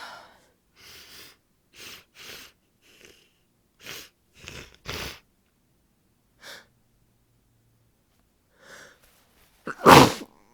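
A woman with a congested head cold sniffling through a stuffy nose, about ten short sniffs and breaths, then one loud sneeze near the end.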